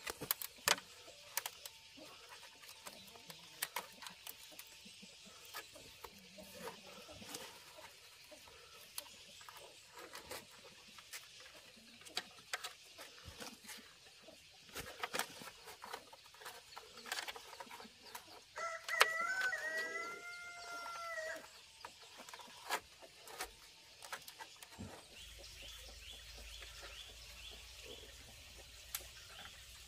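A rooster crows once, a single call lasting about two and a half seconds, about two-thirds of the way in. Scattered light taps and knocks sound throughout.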